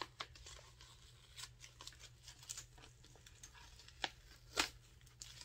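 Paper wrapping and a clear plastic bag crinkling and rustling as they are handled and opened, in faint scattered crackles with two sharper crinkles about four seconds in.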